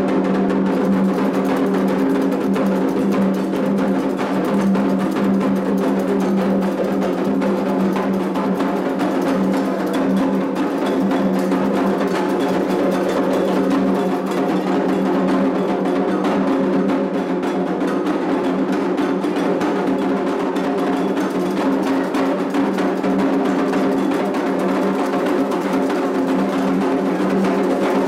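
Candomblé ritual percussion: atabaque drums playing a dense rhythm without a break.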